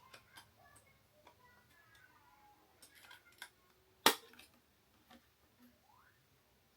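Small clicks and scrapes of a pry tool working under the Xbox Series S heat-sink retaining brackets, with one sharp, loud snap about four seconds in as a bracket pops up.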